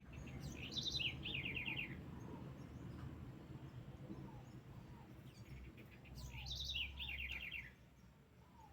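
A songbird sings the same short phrase twice, about five seconds apart: a few high notes, then a fast run of falling notes. A steady low rumble lies underneath.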